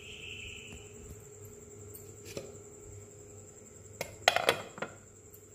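Glass pan lid with a steel rim being set down on a metal pan: a tap about two and a half seconds in, then a cluster of clinks and knocks around four seconds in, over a faint steady hum.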